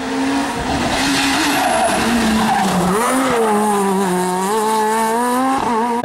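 Rally car engine at high revs, its pitch dropping and climbing again several times as it shifts and accelerates, with tyre noise over it.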